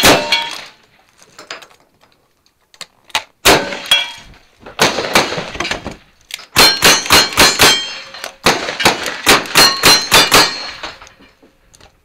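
Gunshots at a cowboy action shooting stage, each with the ring of a hit steel target. It opens with shotgun blasts, then single shots a few seconds apart, then two quick strings of revolver shots about halfway through.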